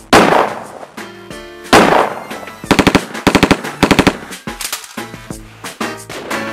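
Gunfire: two loud single shots, each with a long ringing decay, then three quick bursts of automatic fire, over background music.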